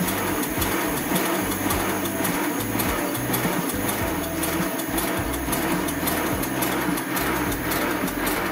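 Miniature 7¼-inch gauge live steam locomotive running with its driving wheels free on a stand. It gives an even, rapid beat of exhaust and valve-gear clatter.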